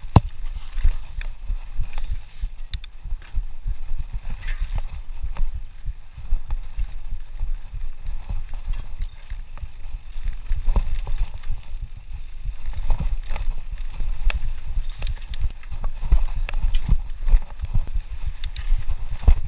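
Mountain bike clattering down a rough dirt and root singletrack: a steady stream of low thuds from the tyres and suspension hitting bumps, with sharp clicks and rattles from the bike, picked up by a rider-mounted action camera.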